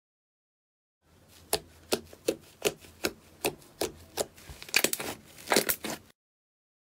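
Thick lavender slime being pressed and stretched by hand, giving a run of sharp, wet clicks and pops about two or three a second, quicker near the end, as trapped air bursts in the slime. The popping starts about a second in and stops suddenly about a second before the end.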